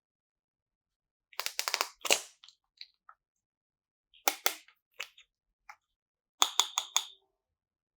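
Sharp clicks and crackles coming in quick clusters of a few at a time, about five clusters in all, with silence between them; the last cluster rings slightly.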